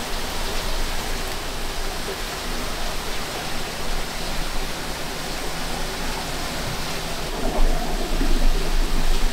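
Steady rushing hiss over a faint low hum, with a few louder bumps near the end.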